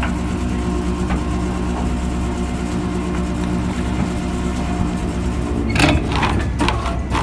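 Anchor being hauled up to a fishing boat's bow over the steady drone of the boat's machinery; about six seconds in, a quick run of clanks and splashes as the anchor comes up out of the water.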